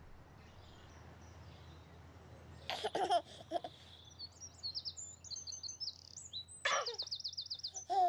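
A baby giggling in two short bursts, about three seconds in and again near seven seconds, with birds chirping between and over the laughs and a quick chirping trill near the end.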